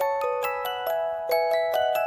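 Background music: a gentle melody of ringing, bell-like struck notes, about three or four a second, each dying away.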